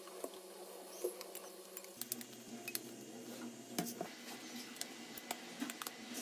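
Scattered small clicks and taps of hand tools and plastic parts as an old mobile phone is worked on, with a faint steady hum underneath.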